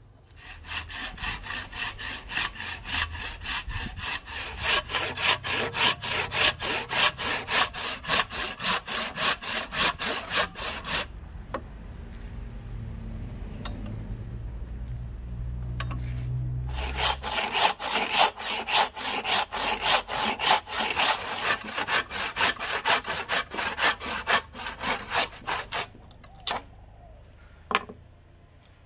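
Hand saw cutting a row of relief kerfs across a block of Siamese rosewood clamped in a vise, in fast, even push-pull strokes of about three or four a second. There is a pause of several seconds midway, then the sawing resumes. The kerfs are cut down to the marked handle outline so the waste can be knocked off.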